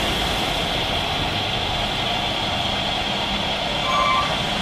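Boeing 777 twin-jet engines running steadily at takeoff power during the takeoff roll and rotation.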